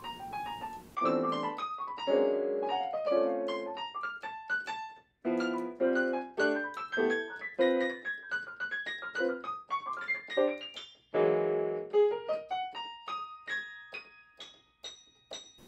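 Digital piano keyboard being played: a slow, freely paced melody of single notes and chords, with short breaks about five and eleven seconds in.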